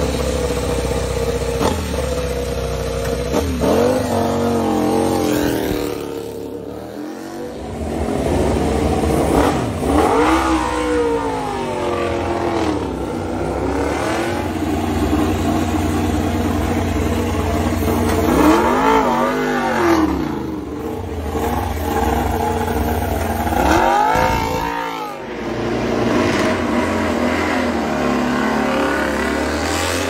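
MotoGP prototype race motorcycle engines running at a rough, lumpy idle and blipped on the throttle several times, each rev sweeping up and falling back.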